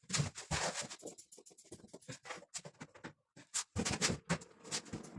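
Irregular run of clicks, taps and scrapes from hard objects being handled, some close together and some spaced out.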